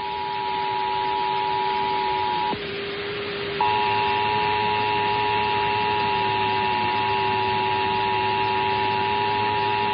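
Emergency Alert System two-tone attention signal: two steady tones sounding together over a hiss and a lower steady hum. The tones break off about two and a half seconds in, then come back about a second later with a faint higher whine added.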